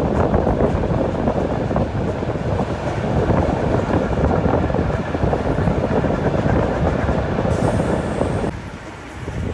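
ER2 electric multiple unit rolling past close at a station platform, a steady loud rumble of wheels on rails. The noise drops away sharply near the end.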